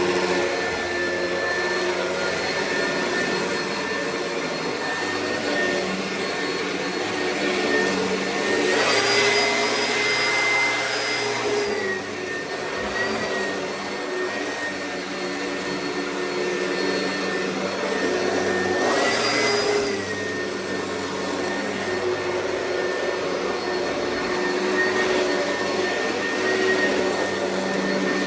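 Oreck vacuum cleaner running with a steady motor whine. Twice, about nine seconds in and again near twenty seconds, the whine rises in pitch and a louder rush of air swells before it settles back.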